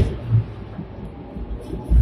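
Sixth-generation Hong Kong double-decker electric tram running, heard from inside: a steady low rumble with two heavy low thuds, one at the start and one near the end.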